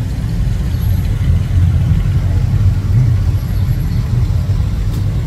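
Engines of 1930s cars and an old pickup truck driving slowly past in a line, a steady low engine rumble that swells a little in the middle.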